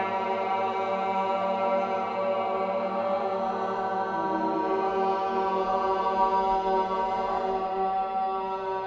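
A small group of women's voices chanting a mantra in long held notes, blending into a steady drone rich in overtones.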